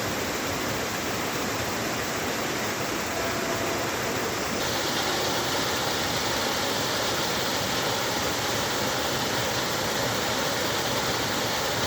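Waterfall rushing steadily. About four and a half seconds in, the rush turns slightly louder and brighter.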